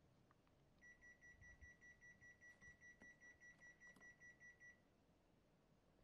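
Panasonic air conditioner's indoor unit beeping: a fast run of short, high beeps at one steady pitch, about five a second, for about four seconds. In check mode this long beeping signals that the code shown on the remote, H00 (no abnormality detected), matches the unit's stored error code.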